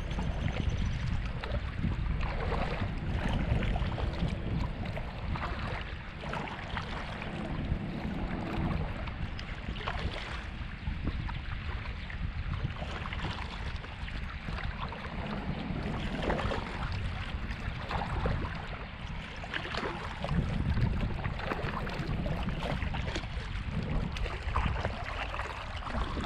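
Wind buffeting the microphone, with water splashing and lapping around a kayak out on open water.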